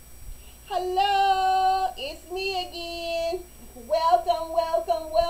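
A high voice singing a short tune, without backing. It holds two long notes first, then sings quicker, shorter notes from about four seconds in.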